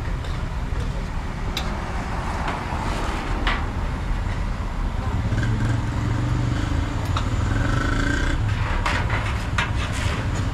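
Street noise: a motor vehicle engine running, getting louder about halfway through, with scattered clinks and knocks.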